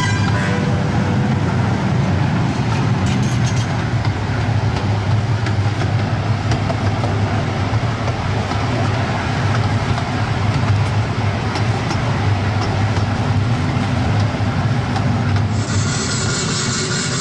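Steady rumble and rattle of a small amusement-park train (the Casey Jr. Circus Train) running along its track, heard from aboard the cars.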